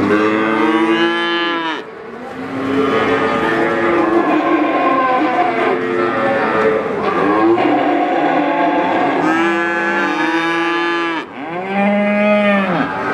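Calves bawling: a long loud call at the start and two more close together near the end, with other cattle mooing more quietly in between.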